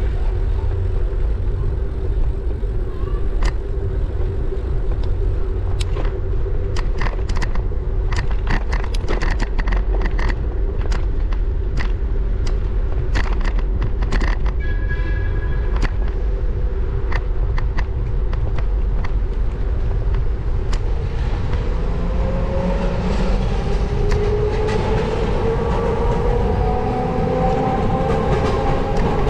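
Wind rushing over an action camera's microphone on a moving bicycle, with a steady low hum underneath. A run of irregular clicks and rattles comes in the first half, and near the end a whine rises steadily in pitch.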